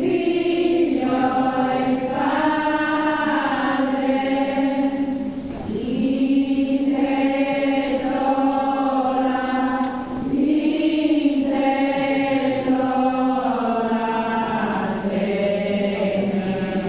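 Voices singing a slow devotional chant in long held notes, in phrases of about five seconds with a brief pause for breath between them.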